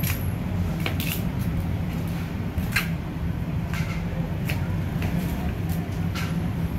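A knife cutting through raw chicken, with irregular sharp clicks and scrapes of the blade against bone and the stone slab every second or so, over a steady low rumble.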